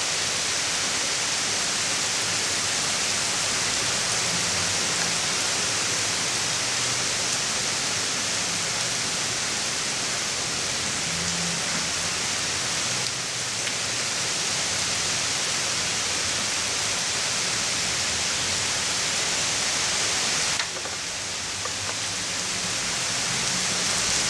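Steady hiss of heavy thunderstorm rain pouring down. It dips slightly about halfway through, drops more clearly near the end, then swells back.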